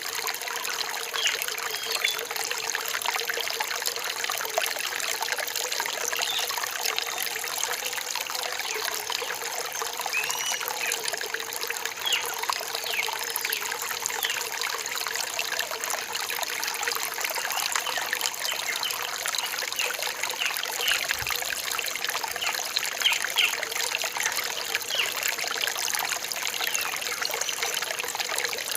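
Small rainforest stream trickling steadily, with a constant gurgle of running water.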